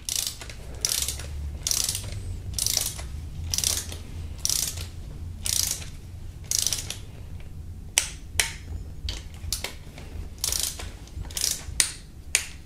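Hand ratchet clicking in repeated short strokes, about one stroke a second, as the camshaft cap bolts on a 2.4 GDI engine's cylinder head are run down. A couple of sharp single clicks come about two-thirds of the way through.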